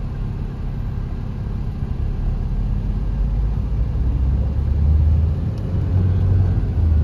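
Low, steady rumble of a car's engine and road noise heard from inside the cabin as it moves slowly in traffic, growing a little louder about halfway through.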